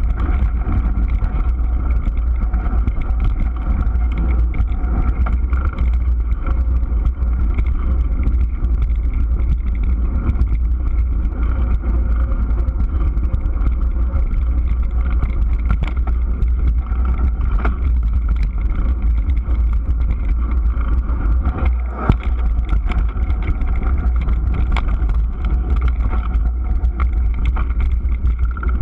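Mountain bike riding fast over a dirt trail, heard through a handlebar-mounted camera: a steady deep rumble of wind and vibration on the microphone, with frequent small clicks and rattles from the bike over bumps.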